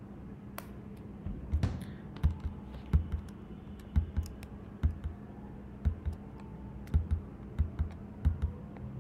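Irregular clicks of a computer keyboard and mouse, about one or two a second, as numbers are entered into a calculator, over a faint steady hum.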